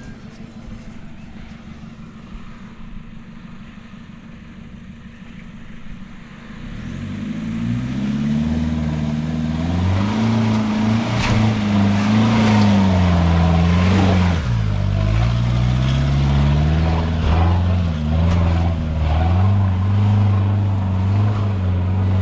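Four-wheel-drive engine running low and steady, then from about seven seconds in revving hard under load, its pitch rising and falling again and again as it works up a track. Several sharp knocks come around the middle.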